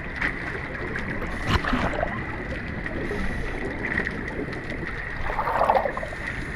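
Steady wind and sea-water noise at the beach, with a thin steady tone through it, a knock about one and a half seconds in and a louder swell near the end.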